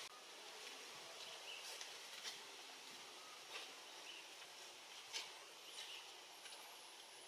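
Faint outdoor ambience with a steady soft hiss, a few short high chirps and several light clicks spread through it.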